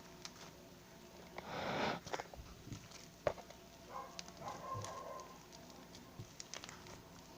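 Slime being squished and handled, giving irregular small clicks and pops, with a louder squelch about a second and a half in and a sharp click a little after three seconds.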